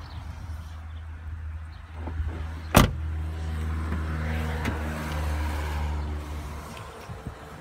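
An Opel Astra's rear door shuts with a single loud thump about three seconds in, over a steady low rumble. A vehicle's steady engine hum rises after it and fades out near the end.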